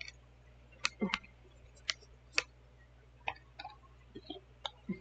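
Makeup cases and tools being handled: about ten light, sharp clicks and taps at irregular intervals.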